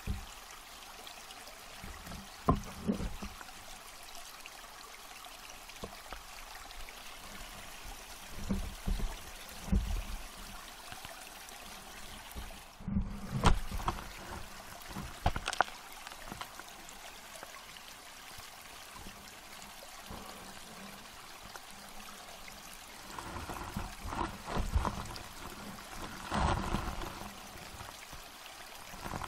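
Water noise picked up by a submerged underwater camera: a steady hiss of moving water, broken by scattered dull knocks and bumps, most of them around the middle and in the last few seconds.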